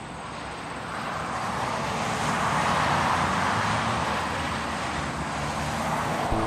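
A steady rushing noise that swells over the first couple of seconds and then holds, easing slightly.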